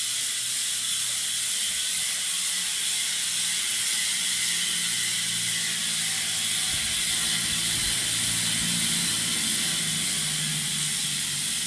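Bicycle rear hub freewheel buzzing steadily as the wheel spins freely, its pawls clicking in a fast, high-pitched ratchet. This is the stock hub sound, with no cans fitted in the rim.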